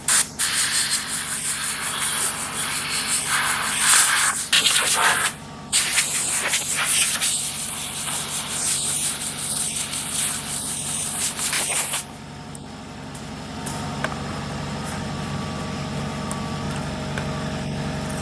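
Compressed-air blow gun hissing loudly as it blasts dust and metal shavings out of a bandsaw, in long blasts with a short break about five seconds in, stopping about twelve seconds in. An air compressor runs steadily underneath, heard on its own after the blowing stops.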